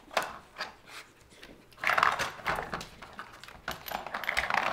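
Hard plastic clicking and rattling of a Brick dog puzzle board as a terrier noses and mouths the bone-shaped blockers and sliding bricks. A few sharp clicks, with a busier clatter about two seconds in and again near the end.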